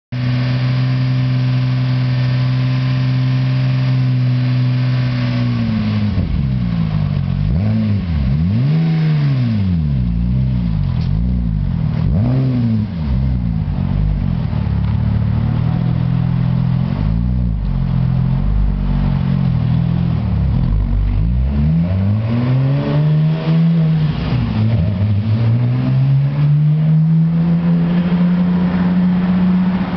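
Porsche 996 911 Turbo's twin-turbo flat-six running through a Race Precision 3-inch exhaust. It idles steadily for about five seconds, then pulls away and drives off, its note rising and falling repeatedly.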